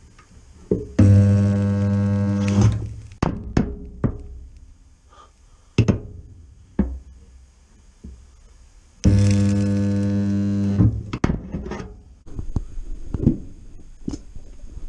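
Resistance spot welder joining a slinger bracket to a car's sill: two welds, each a steady loud electrical hum of just under two seconds that starts and stops abruptly, the first about a second in and the second about nine seconds in. Clunks and clicks from the welder's tongs being clamped and repositioned come between them.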